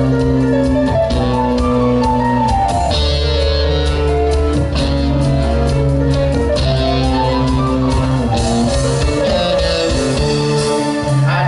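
A rock band playing live without vocals: guitar chords held over bass, with drum and cymbal hits.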